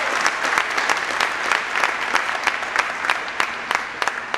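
Crowd applauding, with many sharp individual hand claps standing out; the applause eases off slightly near the end.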